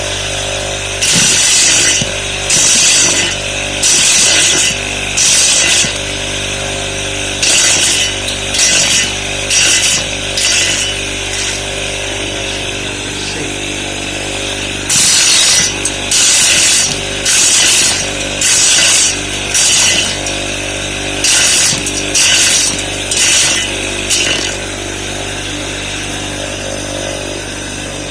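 Simple homemade corn sheller driven by a Sanyo motor, running with a steady hum. Over it come loud, harsh rattling bursts about a second long, one after another in two runs with a pause between, as cobs go through and the kernels are stripped off.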